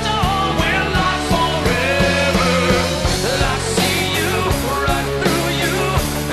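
Background music: a song with a steady drum beat under sustained instruments.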